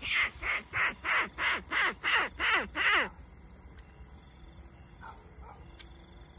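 A hunter's mouth call for luring field rats, blown through cupped hands: a quick run of short nasal calls, about three a second, each falling in pitch. The calls stop abruptly about three seconds in.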